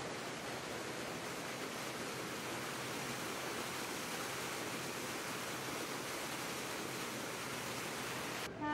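A steady, even rushing noise with no distinct tones. It cuts off abruptly just before the end, and a held pitched tone takes over.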